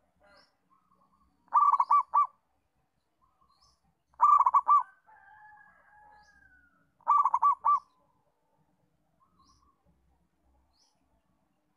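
Zebra dove (local perkutut) singing: three short bursts of quick repeated coo notes, about two and a half to three seconds apart, with a fainter drawn-out call between the second and third.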